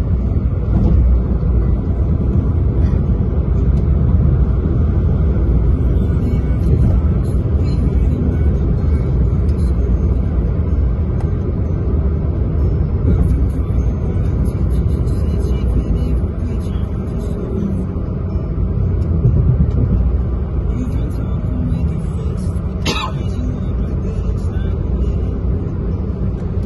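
Steady low road and engine rumble heard from inside a car cruising on an expressway. One short, sharp higher sound cuts through about 23 seconds in.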